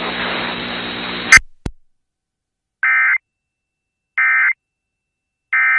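Radio hiss with a low hum, cut off by a click about a second and a half in, then the Emergency Alert System end-of-message signal: three short, identical bursts of screechy digital data tones about a second and a half apart, marking the end of the alert.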